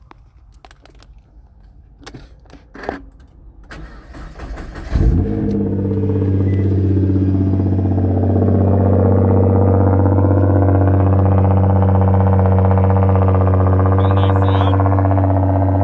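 Nissan GT-R's twin-turbo V6 starting with a loud burst about five seconds in, then settling into a steady idle that builds slightly over the next few seconds. It is preceded by a few light clicks and knocks.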